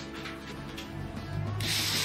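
Background music, with a power drill starting to bore into a wooden board about one and a half seconds in, a dense steady hiss that comes in suddenly.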